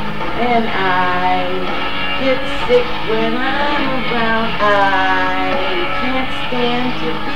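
Rock song with guitar and a sung vocal line.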